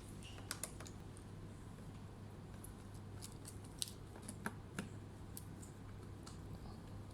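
Irregular light clicks and taps from hands working on a Dell Inspiron 3501 laptop, a few sharper ones around the middle, over a steady low hum.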